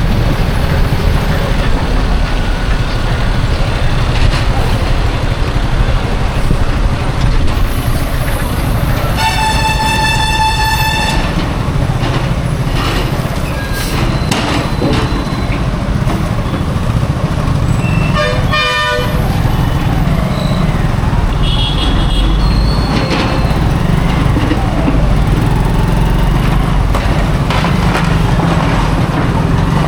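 Highway traffic on an Indian road: a steady low rumble of heavy vehicle engines and tyres. A vehicle horn blasts for about two seconds about nine seconds in, and a shorter, wavering horn sounds a little past the middle.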